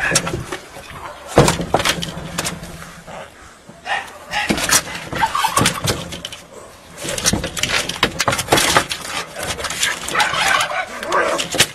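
Two cats fighting: yowling and screeching in repeated bouts, with scuffling and sharp scratching clicks as they grapple on corrugated roof sheeting.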